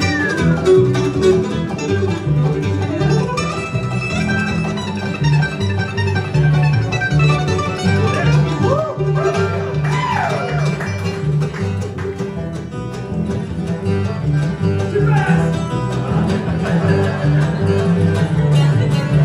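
Bluegrass band playing a fast instrumental breakdown live: mandolin picking the lead over banjo and acoustic guitar, with a steady low beat underneath.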